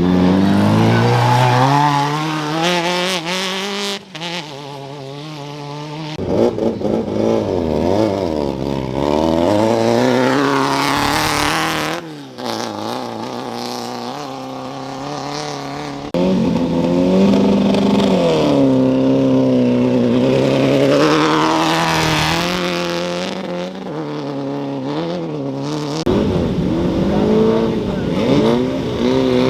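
Engines of off-road race vehicles revving and accelerating hard away from the start line, one after another, the pitch climbing steeply with each run. The sound changes abruptly several times as one vehicle gives way to the next.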